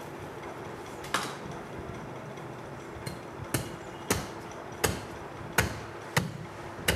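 Butcher's heavy knife chopping through the joint between a goat carcass's two hind legs to split them apart: one sharp blow about a second in, then a run of seven chops roughly every half to three-quarters of a second.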